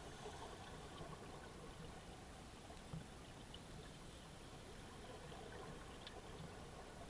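Faint underwater ambience in a swimming pool: a steady low hiss with scattered small clicks, and one soft thump about three seconds in.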